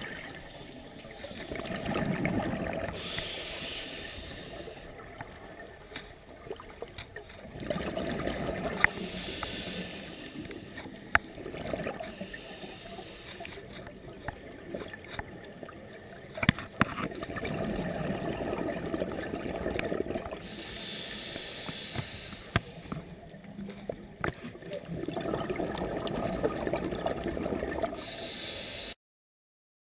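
Scuba diver breathing through a regulator, muffled by the camera's underwater housing: four slow breaths, each a low bubbling rumble of exhaled bubbles followed by a shorter hiss, with sharp clicks scattered throughout.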